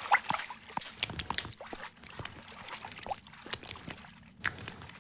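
Cartoon water sound effect: small bubbling plops and gulps in a liquid-filled head jar as food is shaken in and eaten. The plops are scattered and irregular, thinning out near the end, with one sharper plop about four and a half seconds in.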